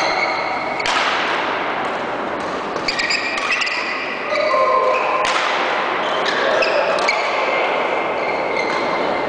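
Badminton rally in a large echoing sports hall: sharp racket strikes on the shuttlecock every couple of seconds, with court shoes squeaking on the floor between them.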